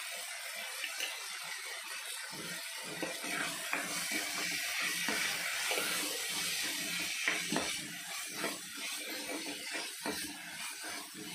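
Cowpeas, onion and tomato sizzling in a non-stick kadai, with a steady frying hiss. From about two seconds in, a spatula scrapes and knocks against the pan again and again as the spice powder is stirred in.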